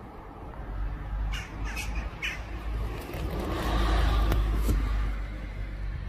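Gulls squawking, about three short harsh calls a little over a second in, over a steady low rumble that grows louder past the middle.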